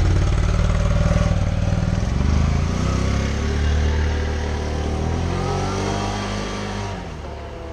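2017 Can-Am Renegade XMR 570 ATV on its stock exhaust, its V-twin engine running with the revs rising and falling, growing fainter toward the end as it moves off.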